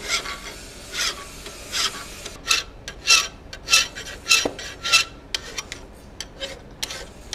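Hand file rasping back and forth across the edge of a 4142 steel hot-cut chisel held in a vise, rounding over its half-round side. About a dozen strokes, coming faster toward the middle, roughly two a second, then lighter in the last couple of seconds.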